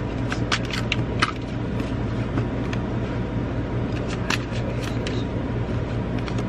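Tarot cards being handled and laid down: a cluster of quick card snaps and clicks in the first second or so and a few more about four seconds in, over a steady low hum.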